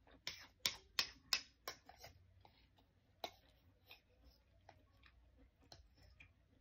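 Metal spoon clinking against a ceramic bowl of mung bean soup as it is stirred and scooped. A quick run of about six sharp clicks comes in the first two seconds, about three a second, then a few fainter, scattered ticks.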